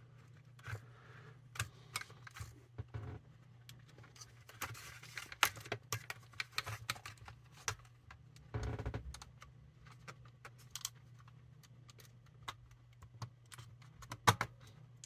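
Irregular plastic clicks, knocks and rattles as the Sony ICF-2001 radio's chassis is worked back into its case, with a short scraping rub about two-thirds of the way through and a louder pair of clicks near the end as it seats.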